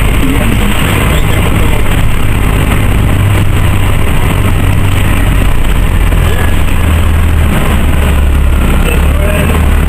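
Orion V transit bus under way, heard from inside the cabin: its Detroit Diesel Series 50G natural-gas engine gives a steady low rumble, with road noise over it.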